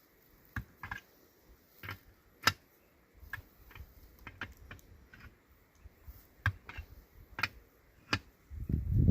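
Irregular sharp clicks and knocks, a dozen or so spread unevenly, the loudest about two and a half seconds in. A low rumble comes up near the end.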